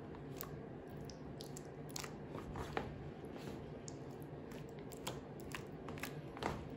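Silicone spatula stirring and scraping a thick, lumpy rice mash in a plastic tub: irregular soft squelches and sharp little clicks against the plastic, over a steady low hum.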